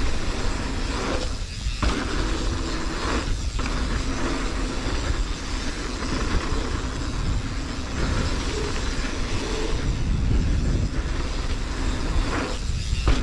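Mountain bike riding down a dirt flow trail: steady rush of wind buffeting the microphone over tyre and trail noise, with brief dips about a second and a half in, at three and a half seconds, and near the end.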